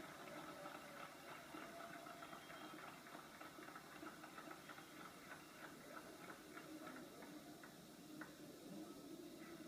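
Near silence: a faint steady hiss with scattered soft ticks.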